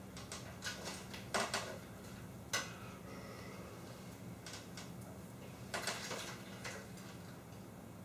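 Scattered light clicks and clinks of small hard parts being handled, as when rummaging for jumper wires; the sharpest clinks come about a second and a half in, at two and a half seconds, and near six seconds.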